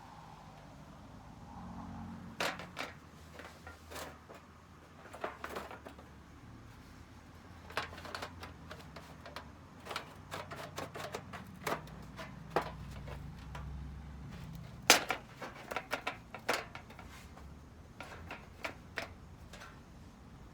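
Irregular sharp clicks and light knocks of metal parts being handled, with the loudest single knock about 15 seconds in. These are the fire pit's steel pieces and carabiners.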